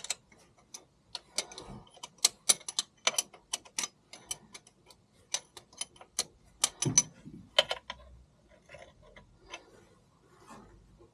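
Irregular sharp metallic clicks and clinks of a hand tool and metal parts as a distributor blanking plug is fitted and tightened into the engine block. The clicks come thick and fast at first, then thin out after about eight seconds.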